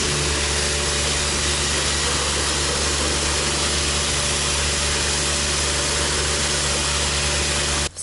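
Self-service car wash high-pressure washer (rated 130 bar) running in water mode: a steady low pump hum under the loud hiss of the water jet spraying, which cuts off abruptly just before the end.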